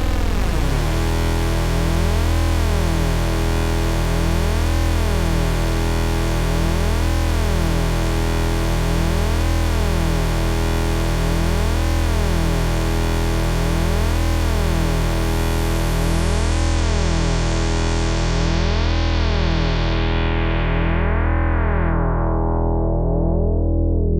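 Electric bass played through an MXR MB301 Bass Synth pedal: one sustained, distorted synth-bass note with a filter sweeping up and down about every two seconds. In the last third the treble is steadily cut away until only a dark low drone is left.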